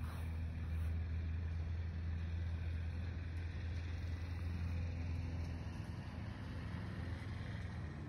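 Steady low hum with an even hiss over it, unchanging throughout, like a distant engine or machine running.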